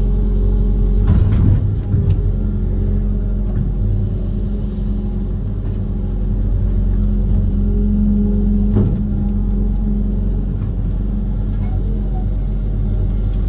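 Diesel engine of a Kobelco SK130 amphibious excavator running steadily under load, with a clunk about a second in and another past the middle as the machine works.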